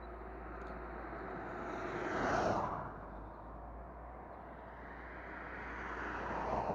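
Two road vehicles pass close by on the road. Each one's tyre and engine noise swells up and fades away, the first about two seconds in and the second near the end.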